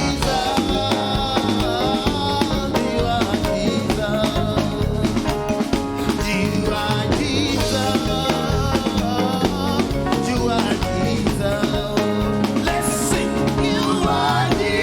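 Live praise and worship music: a band with a drum kit playing, with singing over it.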